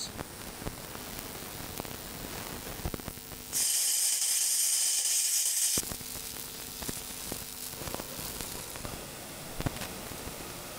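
EDM hole popper's brass electrode spark-burning through a broken high-speed steel tap: a steady crackling, sizzling spark noise with scattered sharp clicks. A much louder hiss joins in for about two seconds midway.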